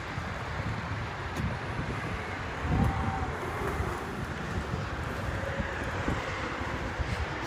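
Wind buffeting the microphone, a fluctuating low rumble over a steady outdoor background hiss.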